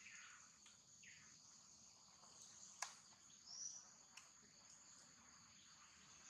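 Faint, steady high-pitched chirring of insects such as crickets, with a single sharp click a little before the middle and a brief high chirp about halfway through.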